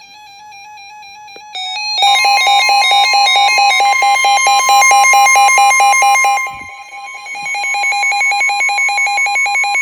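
Electronic emergency alert tones. A softer electronic tune plays first, then about two seconds in a loud alarm starts: fast-warbling buzzy beeps over one steady high tone. Near the end the beeping thins out while the steady tone holds on.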